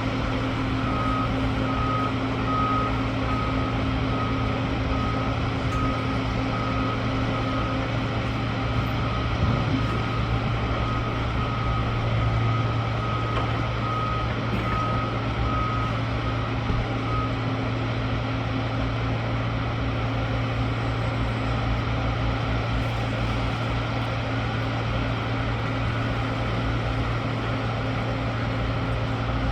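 Construction machine backing up: its reversing alarm beeps at a regular pace for roughly the first 17 seconds, then stops. Its engine runs steadily throughout.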